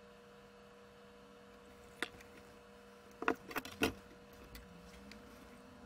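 Sharp clicks and knocks from hands and tools working on the open metal chassis of an electronic instrument: one click about two seconds in, then a quick cluster of four or five a little after three seconds, over a faint steady hum.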